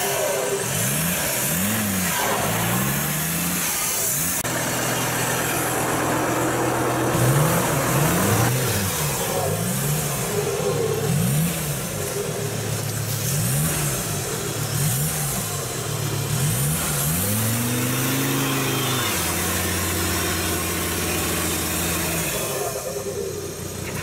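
Modified off-road jeep's diesel engine revving over and over in quick rises and falls, about one a second, with stretches where it is held steady and one longer, higher rev about three quarters of the way through.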